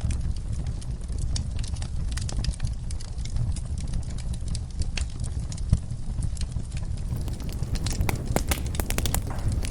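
Wood fire in a fireplace crackling and popping over a low, steady rumble of flames. There is one sharper pop a little past halfway, and the crackles come thicker near the end.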